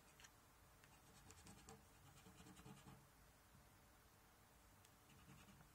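Faint scraping of a coin on a scratchcard's scratch-off coating, in a few short strokes.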